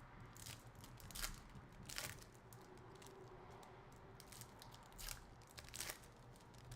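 Faint crinkling and rustling of trading cards and their plastic packaging being handled, with about five short crackles.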